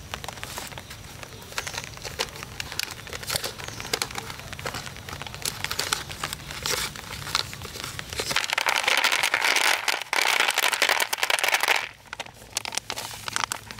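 Crackling and rustling with many scattered clicks, growing louder and denser about eight seconds in for several seconds, then dropping away.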